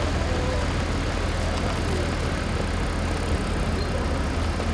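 Mobile crane's engine running steadily under load, a constant low hum with a broad mechanical rumble.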